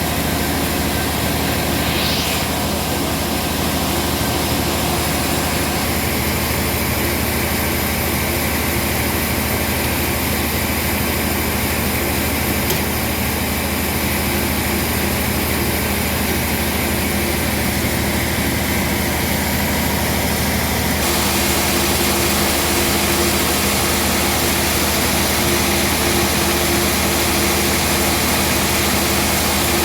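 Band sawmill running with a steady machine hum and a broad hiss; the sound changes abruptly about two-thirds of the way through.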